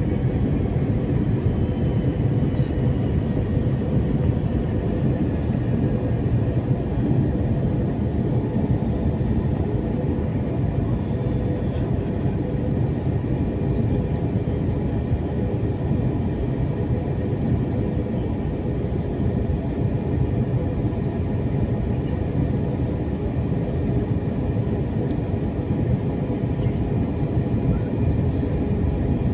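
Airliner cabin noise in flight: the steady low roar of the jet engines and airflow heard from a window seat, with a few faint steady hum tones above it.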